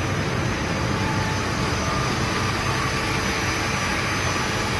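YANG EAGLE 450 CNC horizontal machining center running with its spindle turning and coolant spraying in the work area: a steady, unbroken machine noise with a low hum.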